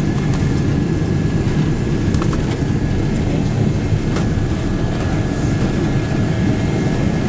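Jet airliner cabin noise while taxiing: a steady low rumble of engines and wheels, with a faint steady whine over it. A few light knocks or rattles come about two and four seconds in.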